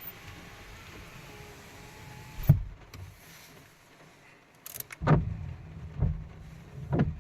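A car's power window working, ending in a sharp thump about two and a half seconds in as the glass seats. From about five seconds, a heavy thud repeats about once a second.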